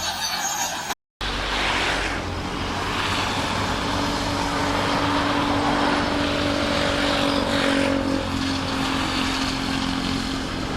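Shantui SD16 crawler bulldozer's diesel engine running steadily under load, with a low rumble and a steady whine over it. A short silent break about a second in cuts from a different sound into the engine.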